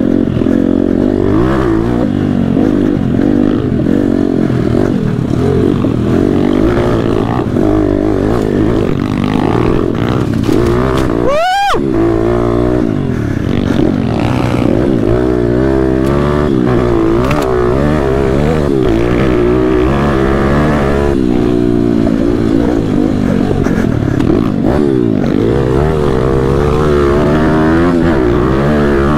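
MRF pitbike engine heard from the handlebars while being ridden hard on a dirt track, the revs rising and falling continuously through the gears. About halfway there is one sharp, brief rise in revs that drops straight back.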